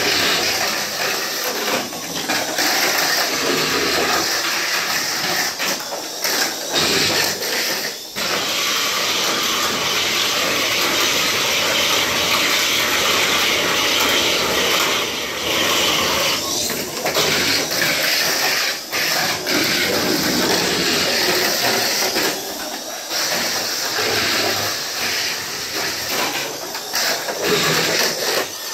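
Mini 4WD cars running on a plastic race track: a loud, steady whirring hiss of small electric motors and rollers on the track walls, with a few brief dips.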